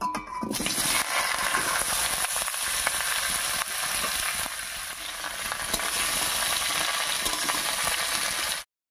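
Parboiled green jackfruit and potato pieces hitting hot mustard oil in a kadai and sizzling loudly, with a metal spatula clicking and scraping as it stirs them. The sizzle starts the moment the pieces land and cuts off suddenly near the end.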